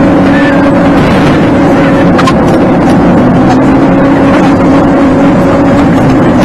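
Car cabin noise while driving, sped up to double speed: a steady engine hum over road and tyre noise, with a few brief clicks a little over two seconds in.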